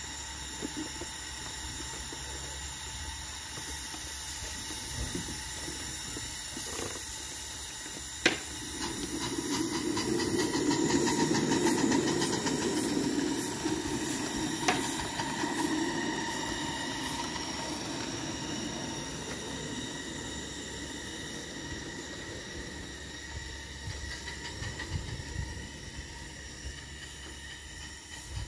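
Miniature ride-on steam locomotive on a garden railway hissing steadily. A sharp click comes about eight seconds in, then a louder rumble with fast ticking as the train gets under way, strongest from about ten to sixteen seconds in.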